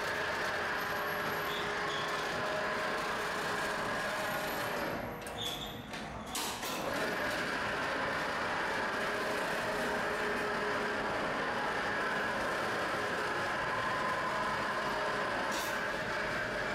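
Electric overhead crane and chain hoist travelling along its runway, a steady mechanical hum with a held whine; it dips briefly about five seconds in, then runs on.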